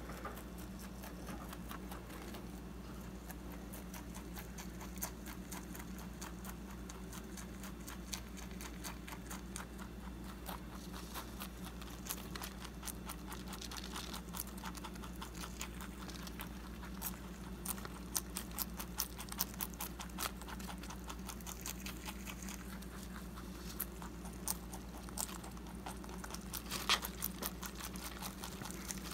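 Holland lop rabbit chewing fresh parsley: a steady run of quick, crisp crunching clicks, with louder bites coming more often in the second half.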